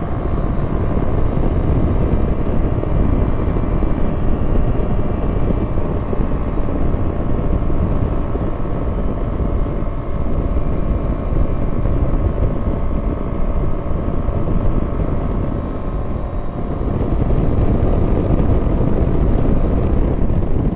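Quad City Challenger II ultralight in cruising flight: the engine's steady drone mixed with wind rushing past the cockpit. It eases a little for a moment late on, then comes back up.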